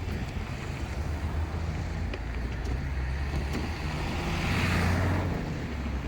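Diesel railcar engine running with a steady low drone, growing louder for a moment about four and a half seconds in as the train comes closest. A few faint clicks sound over it.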